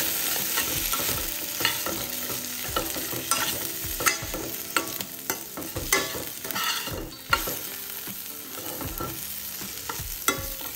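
A spatula stirring and scraping grated coconut, tomato, garlic and whole spices frying in a little oil in a nonstick pan, with a light sizzle and irregular clicks and knocks of the spatula against the pan. The masala is being sautéed before it is ground to a paste.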